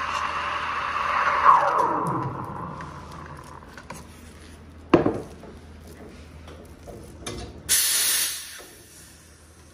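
Espresso machine steam wand hissing as it steams milk in a stainless pitcher, ending with a falling tone as the steam stops about two seconds in. A single knock follows a few seconds later, then near the end a short, sharp burst of hiss as the wand is purged.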